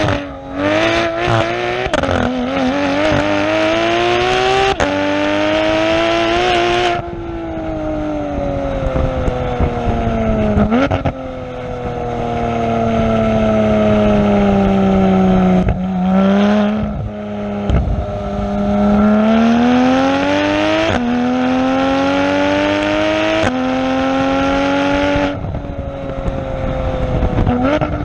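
Porsche 991 GT3's flat-six exhaust heard at the tailpipes under hard acceleration, its pitch climbing and breaking at each upshift. Twice it lifts off and the note falls away, with short sharp throttle blips on the downshifts, and between the lifts it pulls up through two more gears.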